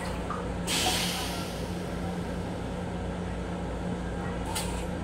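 M7 railcar toilet finishing its flush: a hiss about a second in and a shorter hiss near the end, over the steady low hum of the moving train car.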